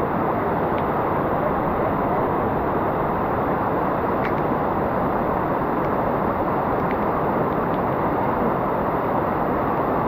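Steady rush of a rain-swollen stream pouring over rock slabs below a waterfall, an even roar with no change in level.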